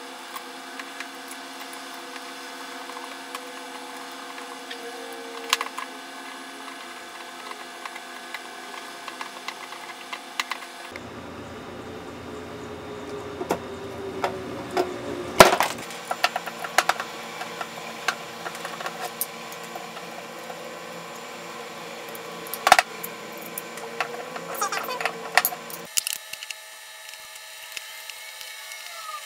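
Small metal carburetor parts and hand tools clicking and knocking against a wooden tabletop while an accelerator pump is fitted to a Holley float bowl, over a steady hum. The sharpest knocks come about fifteen seconds in and again near twenty-three seconds, with a run of light clicks between them.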